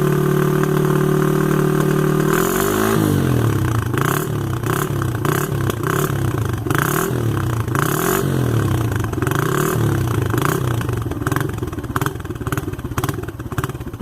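Suzuki Intruder 125's single-cylinder engine through an aftermarket 'chanfrado' exhaust, held at a steady raised speed for about two seconds, then dropping and being blipped again and again, revving up and down about once a second. Sharp clicks come over the later revs.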